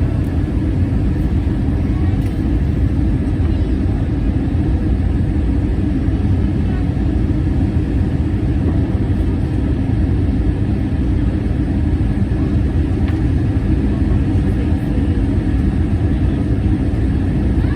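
Airbus A321 cabin noise in flight: a steady, unbroken low roar of the engines and the air rushing past the fuselage.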